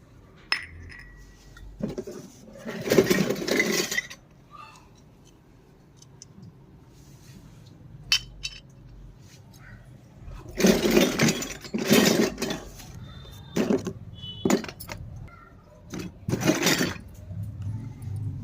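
Miniature toy kitchen pieces being handled and set down, in clicks, clinks and short rattles: a burst about three seconds in, then several more in the second half.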